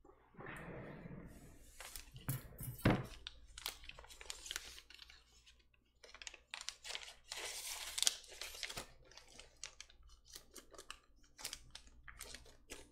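Clear plastic bag crinkling and rustling as it is handled, with scattered sharp clicks and taps.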